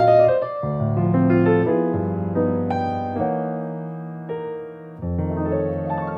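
Background piano music: a slow piece of held notes and chords that change about every half second to a second.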